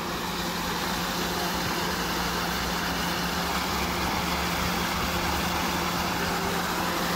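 Ground-level splash fountain, its water jet gushing up through a metal floor grate with a steady rushing splash; a steady low hum runs beneath it.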